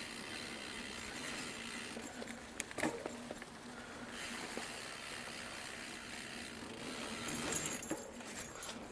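Mountain bike rolling along a dirt trail: steady tyre noise with the rattle and clicks of the bike's drivetrain, and a few sharp knocks as it goes over bumps, the clearest about three seconds in.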